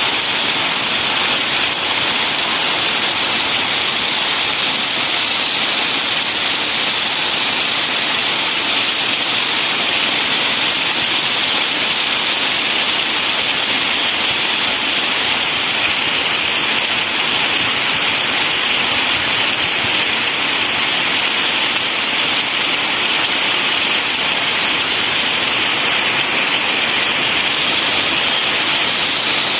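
Steady heavy rainfall, an even hiss of falling rain.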